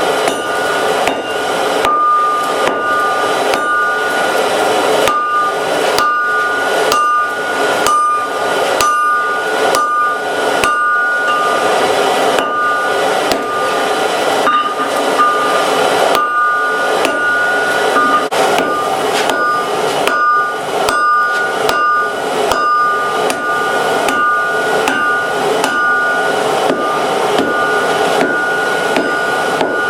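Hand hammer striking hot steel on an anvil, about two blows a second, each leaving the anvil ringing in two clear tones, over a steady rushing noise.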